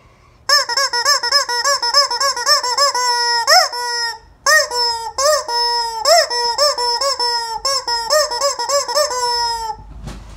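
Squeaky rubber chicken toy squawking in quick repeated squeezes, about four a second, in two runs with a brief break about four seconds in; each run ends on a longer drawn-out squawk.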